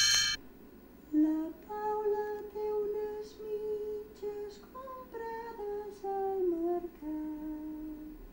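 A lone woman's voice humming a slow melody, one held note after another with small slides between them, starting about a second in. Just at the start, a loud bright chord cuts off.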